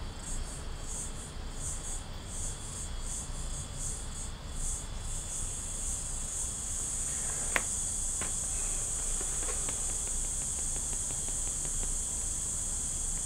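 Insects chirping: a high-pitched chirp pulsing two or three times a second for the first few seconds, then running on as a steady trill. A single sharp click comes about halfway through.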